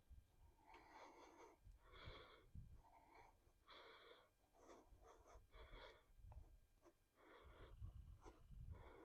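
Near silence, with faint, irregular short hisses and a few low rumbles.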